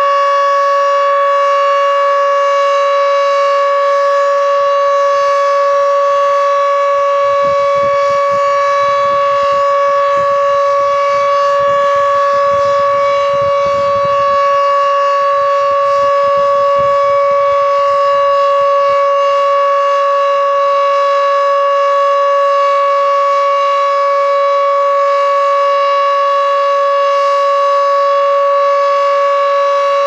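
Federal Signal Model 7 outdoor warning siren sounding its steady alert tone on a test, holding one unchanging pitch.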